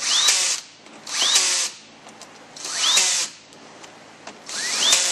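Cordless drill run in four short bursts, its motor whine rising each time it spins up, driving bolts down into an automatic transmission valve body.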